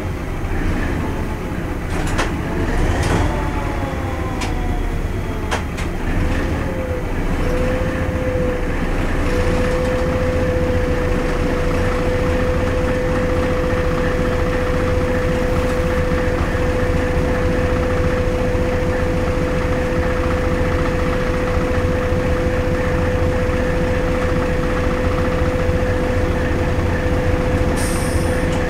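Hastings diesel-electric multiple unit running along the line, heard from its cab: a steady rumble of engine and wheels on rail. A few sharp knocks come in the first six seconds, a pitch that settles into a steady hum after about seven seconds, and a short hiss comes near the end.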